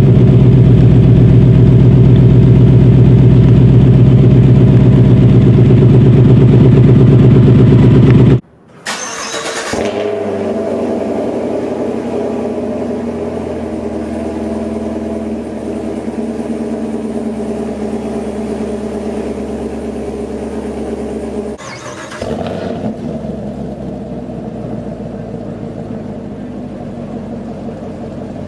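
V8 sports car with a stock dual-mode exhaust, just started and running at a loud, steady fast idle. About eight seconds in the sound cuts off; after a short burst the engine is heard idling again, more quietly, with another short burst about two-thirds of the way through.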